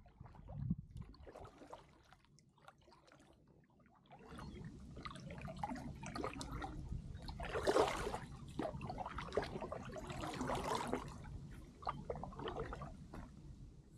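Kayak paddle strokes through calm water, with splashing and trickling drips off the blades. The water noise swells about four seconds in and is loudest twice, a little past halfway and again later.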